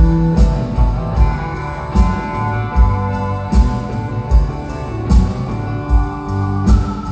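Live band playing an instrumental passage, guitar to the fore, over a steady beat of about one stroke every 0.8 seconds.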